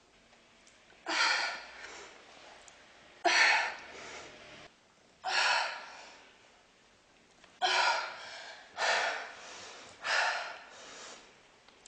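A woman's hard, sharp exertion breaths, six of them about one to two seconds apart and coming quicker near the end, one with each leg raise as she works through the set.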